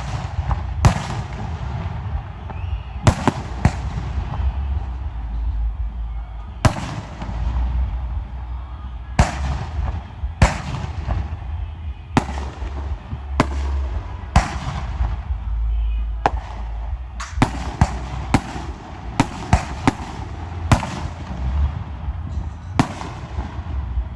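Aerial fireworks shells bursting in a steady string of sharp booms at irregular intervals, coming faster in a cluster over the latter half, over a continuous low rumble.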